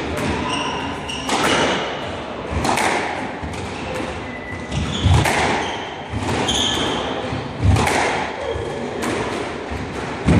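A squash rally: the ball is struck by rackets and thuds off the court walls about every second and a half, with short high squeaks of court shoes on the wooden floor in between.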